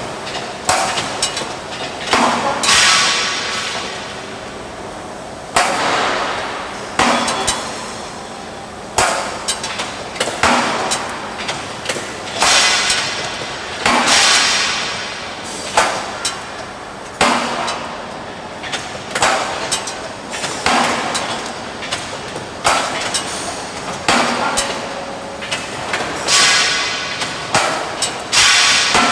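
CNC punching machine punching holes in structural steel: a sharp metallic bang with a ringing tail about every one and a half to two seconds, in a steady working cycle.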